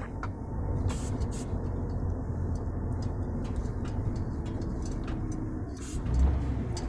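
Cab interior of a MAN semi-truck rolling slowly: the diesel engine gives a steady low hum with light rattles, swelling into a heavier low rumble about six seconds in.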